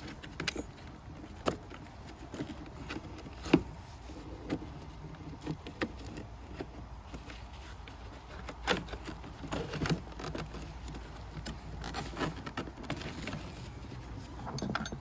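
Scattered light metallic clinks and plastic knocks as a spanner undoes a car battery's positive terminal and the battery's plastic housing is handled. The sharpest knock comes about three and a half seconds in.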